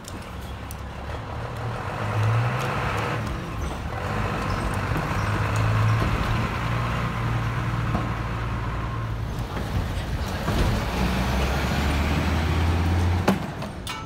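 A large road vehicle's engine running close by: a loud, low, steady drone whose pitch steps up and down a few times, cutting off suddenly near the end.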